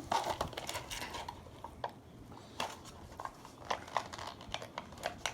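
Irregular light clicks, knocks and clatter of a Pringles can being handled and opened.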